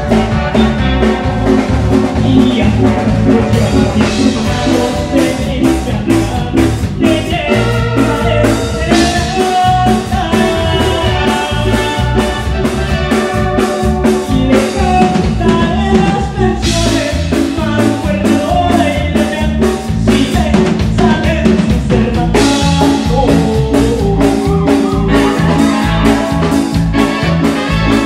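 Live tierra caliente band music: a keyboard and a drum kit playing a steady beat, with a man singing into a microphone.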